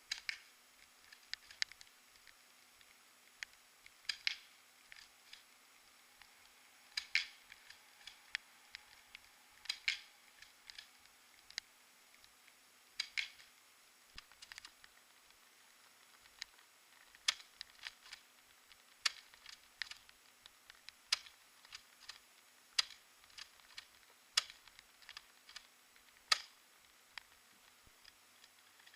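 ASG Franchi SAS 12 spring-powered airsoft shotgun being pumped and fired: a run of sharp plastic clicks and snaps, in short clusters every few seconds at first, then single clicks about every one to two seconds.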